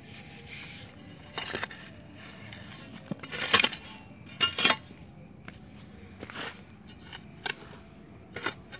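Loose soil being scraped and pushed into a small grave with a hand tool, in several short scrapes, the loudest about three and a half and four and a half seconds in. Insects chirp steadily underneath.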